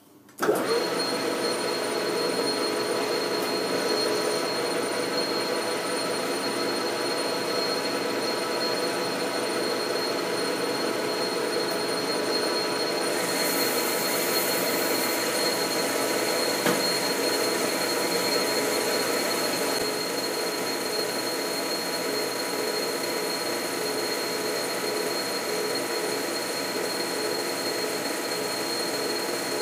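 Metal lathe starting up about half a second in and then running steadily while a boring bar takes a light cut inside the bore of a metal hub. A short hiss of sprayed cutting fluid comes about thirteen seconds in.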